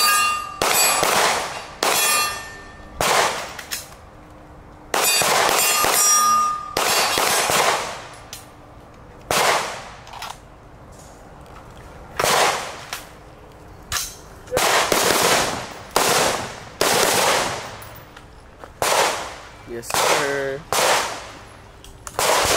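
Gunfire from a pistol and an AR-style carbine in quick, irregular strings of about twenty shots, each one trailing off in a short echo. Steel targets give a brief metallic ring after some of the hits.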